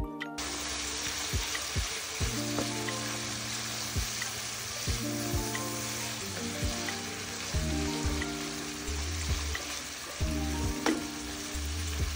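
Chopped lamb intestines for kokoreç sizzling steadily as they fry in a non-stick pan, with background music playing over it.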